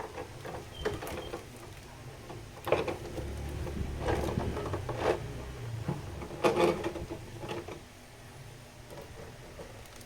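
Packaging of a boxed figure being handled and opened: irregular rustles, scrapes and clicks, with the sharpest knocks about three seconds in and again around six and a half seconds in.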